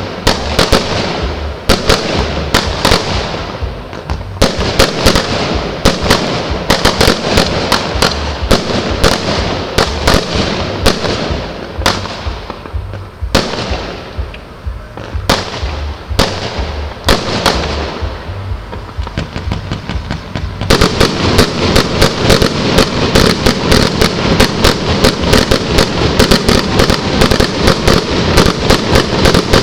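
Fireworks going off: a string of loud bangs with echoing tails. About two-thirds of the way through they thicken into a dense barrage of rapid bangs and crackle.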